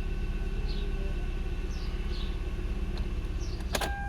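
Hyundai i30's 2.0 four-cylinder petrol engine idling steadily, with faint bird chirps. It cuts off with a sharp click near the end.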